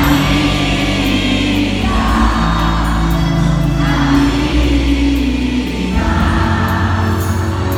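Live pop band playing a slow song, with sustained keyboard chords and bass that change about every two seconds, and voices singing over them.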